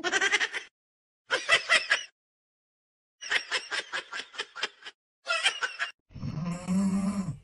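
A kitten crying in four bursts of shrill, rapidly pulsing squeals, its mouth wide open. Near the end comes one long, low snoring breath from a cat asleep on its back.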